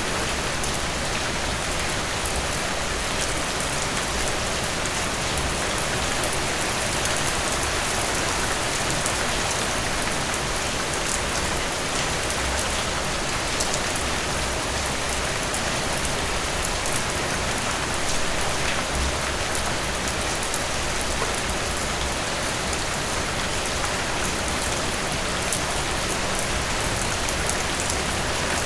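Steady rain falling on a surface, an even hiss with many fine drop ticks and no thunder.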